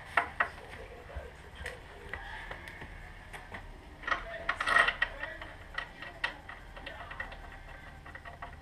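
Hand tools working on a race motorcycle's front wheel and fork: scattered sharp metallic clicks and taps, with a louder burst of clatter a little past the middle.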